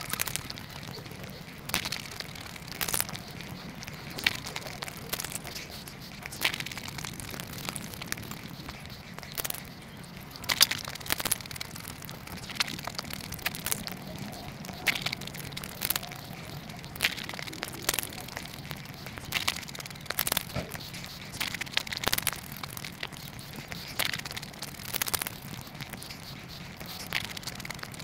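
Close-miked eating of pani puri: crisp, hollow puri shells cracking and crunching, with wet chewing in between. Sharp crunches come irregularly, roughly once a second.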